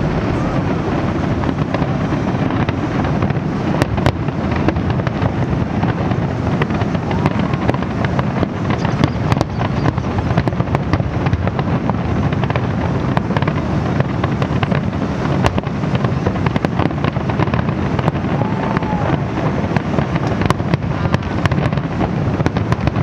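Aerial fireworks shells bursting in a continuous barrage: a constant low rumble of explosions cut through by many sharp cracks.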